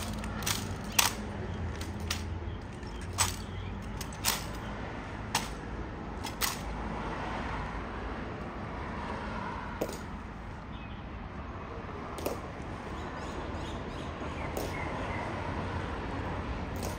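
Sharp clacks over a steady background noise. They come in a quick, uneven run for the first six or seven seconds, then only one every two or three seconds.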